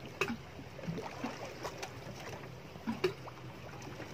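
Small water slaps and light knocks against the hull of a speedboat sitting on calm sea, over a faint steady low hum.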